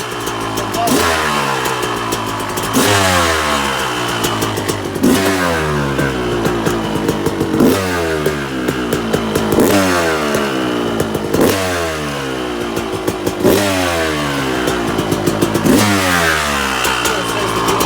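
2002 Kawasaki KX250 two-stroke single running after a full engine rebuild and being revved repeatedly: about eight sharp throttle blips, roughly one every two seconds, each dropping back toward idle.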